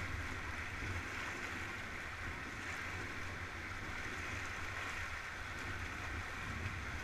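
Shallow mountain river rushing over stones around an inflatable raft, a steady even rush with a low rumble underneath.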